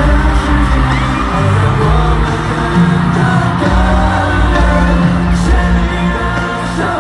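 Live concert pop music: a band playing with singing, and the audience yelling and cheering over it.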